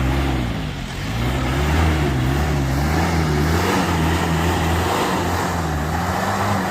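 Kia Bongo Frontier's 3.0 JT diesel engine running, its pitch wavering up and down in slow waves about once a second.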